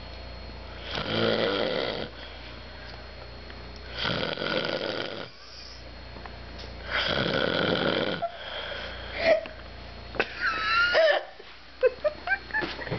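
Elderly man snoring really loud in his sleep: three long snores about three seconds apart. Near the end the snores give way to a brief wavering whistle and several short, sharp sounds.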